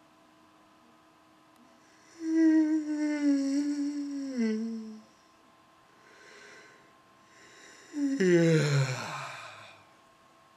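A man's loud, drawn-out voiced yawns. The first starts about two seconds in and slowly falls in pitch. After a breath in, a second, breathier yawn about eight seconds in slides steeply down to a low groan.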